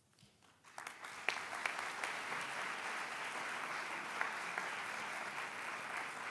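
Congregation applauding, the clapping building up within the first second and then holding steady.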